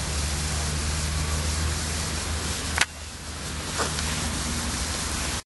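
Muffled rumble and hiss from a phone microphone held against a face, with a single sharp click a little under three seconds in, after which it is quieter.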